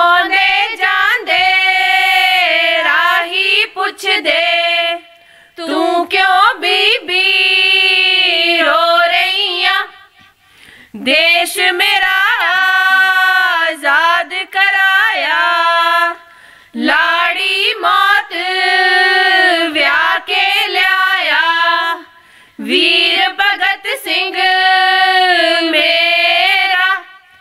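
Women singing a Punjabi folk song for giddha, unaccompanied, in sung phrases of about five seconds with short breaths between them.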